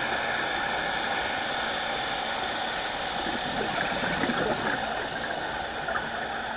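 Steady underwater hiss and rumble picked up through a camera's waterproof housing, with no distinct events.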